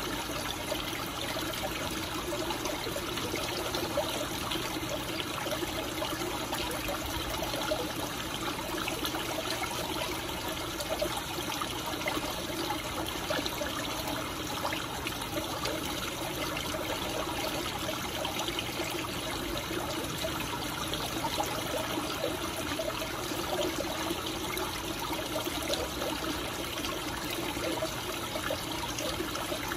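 Steady trickle and splash of running water in a goldfish pond.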